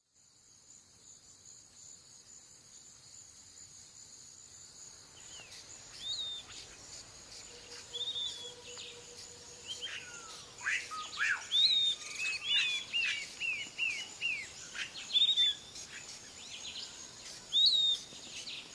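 Forest ambience: a steady high insect buzz fades in, and from about five seconds in birds call over it with short slurred whistles, one long falling whistle, and a quick run of repeated notes.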